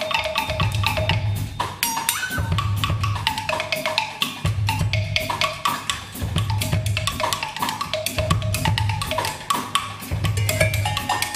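Live band playing an up-tempo groove, with drum kit and hand percussion to the fore in a dense run of hits, over electric bass and keyboards.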